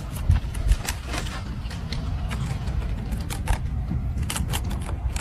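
Irregular clicks and taps over a steady low rumble.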